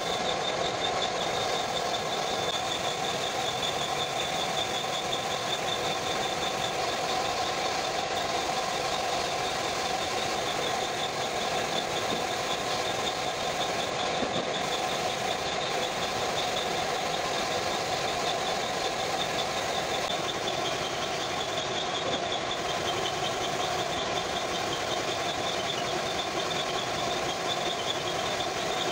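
Paint spray gun and its air supply running steadily: a constant motor hum with a high, slightly wavering whine.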